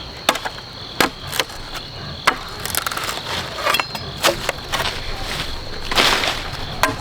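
Irregular sharp knocks and short scraping rustles from hands-on work, about ten in the space of a few seconds, with a longer scrape near the end. A steady high insect drone runs underneath.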